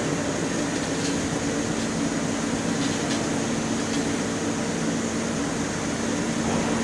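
CNC pipe-cutting machine's chuck drive slowly rotating a clamped steel pipe: a steady mechanical hum with a constant low tone.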